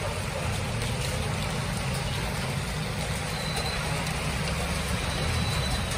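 Steady monsoon rain on a wet street, with the low rumble of passing motor traffic, a motorcycle and a van among it. The rumble grows a little louder near the end as the van passes close.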